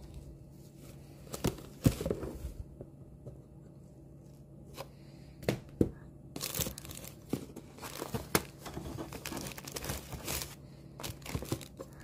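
Plastic wrap on books crinkling and rustling in irregular bursts of sharp crackles as the books are handled in a cardboard shipping box, busiest in the second half.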